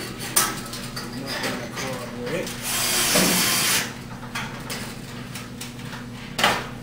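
Cordless drill driving a self-drilling screw into the steel fixture channel: a burst of a little over a second near the middle, with sharp clicks before and after it.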